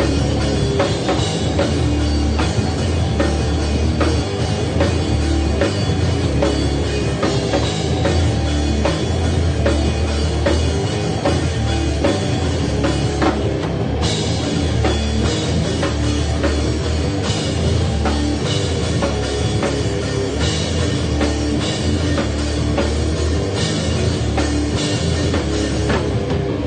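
Live heavy rock band playing loud and steady, with the drum kit hitting hard throughout. The high end briefly drops away about halfway through, then comes back.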